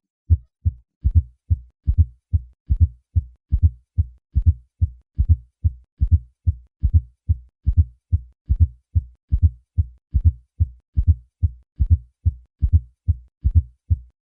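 Heart sounds of a fourth heart sound (S4, atrial gallop): repeated low-pitched thumps about two to three a second, an extra late-diastolic sound just before each lub-dub. It is the sign of a stiff, poorly compliant left ventricle.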